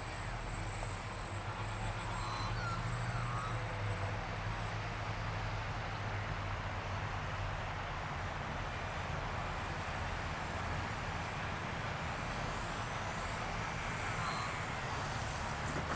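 Radio-controlled model Airbus A400M flying overhead, its motors a faint, thin, steady high whine over a low steady rumble.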